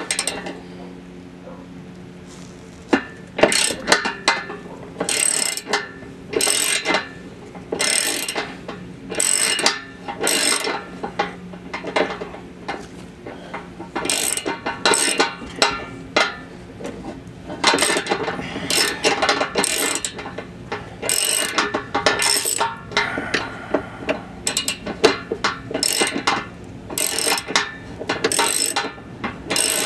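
Hand ratchet wrench with an extension and 13 mm socket clicking in repeated strokes with short pauses, as it backs out a bolt holding the exhaust in place.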